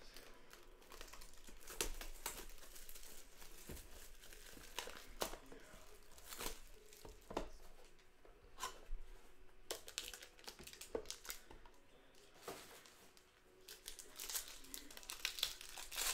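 Plastic wrapping crinkling and tearing in irregular crackles and rustles as sports-card boxes and packs are unwrapped.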